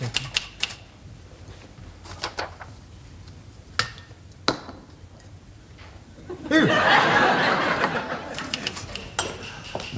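Manual typewriter keys clacking in quick runs for the first couple of seconds, then a few single clacks. Studio audience laughter swells about six and a half seconds in and fades out about two and a half seconds later; it is the loudest sound.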